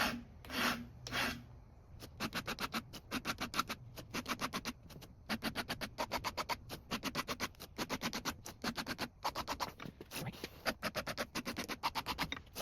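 Hand file sharpening the cutters of a Homelite XL12 chainsaw chain: a few slower strokes, then from about two seconds in a long run of short rasping strokes, about five a second.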